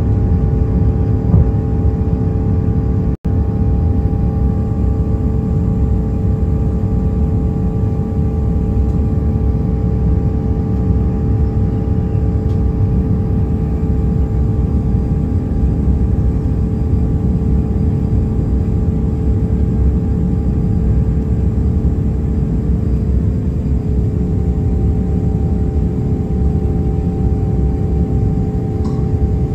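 Cabin noise of an Airbus A350-900 in its initial climb after takeoff, heard beside the wing: the Rolls-Royce Trent XWB turbofan's steady roar with a few steady whining tones above it. The sound cuts out for an instant about three seconds in, and the tones shift slightly a little after two-thirds of the way through.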